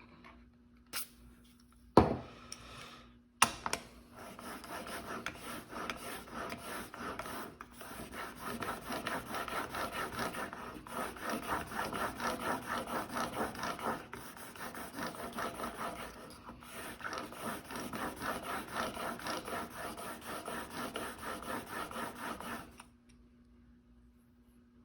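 A couple of sharp knocks, then a steel broadhead held in a KME sharpening jig is stroked quickly back and forth across oiled sandpaper on a glass plate, making an even, rhythmic scraping. This is the grinding of its single bevel toward a 25-degree edge. The strokes stop a couple of seconds before the end.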